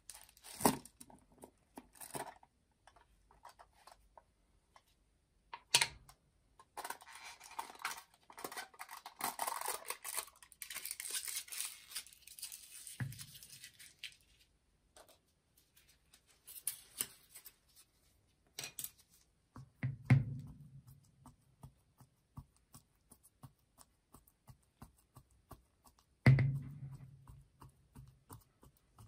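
Plastic jar of marshmallow cream handled on a stainless-steel plate: a few sharp clicks as the screw lid comes off, then about seven seconds of crackly tearing as the jar is unsealed. Three dull knocks follow as the jar is set down on the steel, and near the end small sticky ticks of a wooden stick scooping the cream.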